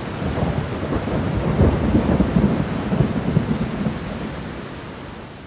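Storm sound effect: a long roll of thunder with rain hiss, swelling to its loudest around the middle and fading away near the end.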